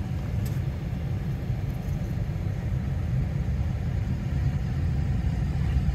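Ram pickup truck's engine idling, a steady low rumble heard from inside the cab with the driver's door open.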